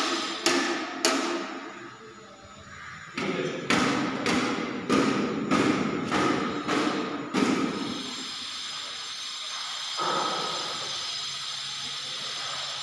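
A series of sharp knocks or thuds with a short ringing tail: three near the start, then a regular run of about seven, a little over half a second apart, ending about seven and a half seconds in. A steady hiss runs underneath.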